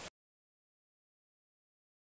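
Silence: a faint background hiss cuts off abruptly right at the start, followed by complete digital silence.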